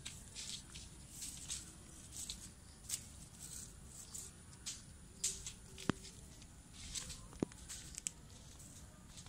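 Kittens moving about: soft, irregular scratching and rustling with no clear rhythm, and two sharp clicks a little after the middle.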